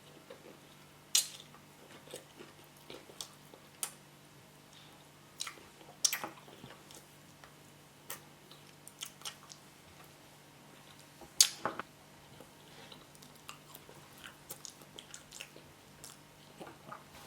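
Close-up chewing and mouth sounds of a person eating boiled yam with spinach: soft wet smacks and small clicks, with a few sharper clicks about a second, six seconds and eleven seconds in.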